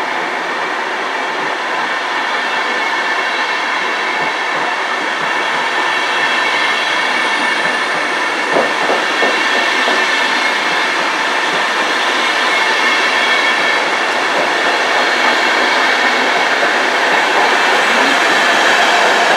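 Deutsche Bahn InterCity coaches rolling along the track: a steady rumble and hiss of steel wheels on rails that grows slowly louder, with a short run of clicks, wheels passing over rail joints, about halfway through.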